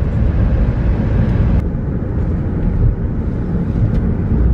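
A moving car heard from inside the cabin: a steady low rumble of engine and tyres on the road. The higher hiss drops away about a second and a half in.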